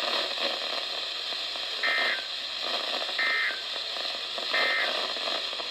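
Three short, identical electronic data bursts of an Emergency Alert System SAME code over steady weather-radio hiss, about one and a third seconds apart. Their brevity fits the End-of-Message signal that closes a broadcast warning.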